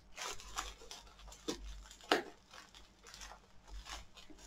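Hands picking open small packaging: a few short, irregular crinkles and scratches of wrapping, the sharpest about two seconds in.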